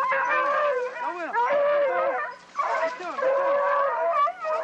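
A pack of deer hounds barking and bawling, several dogs giving voice at once: short arching barks over longer drawn-out bays, with a brief lull about halfway through.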